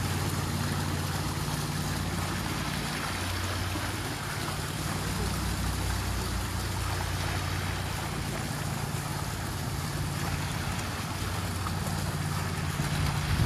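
Fountain water splashing and trickling steadily, spilling from the bowl and small jets into the stone basin, with a low steady rumble underneath.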